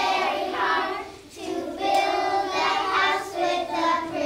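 Group of kindergarten children singing a song together, in phrases with a short break about a second and a half in.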